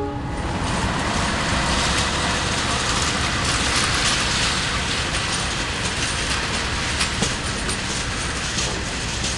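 KA Pangrango passenger train moving off from the station, with a steady rumble and rattle of wheels on rails and scattered clacks over the rail joints. The last of a long horn blast cuts off just at the start.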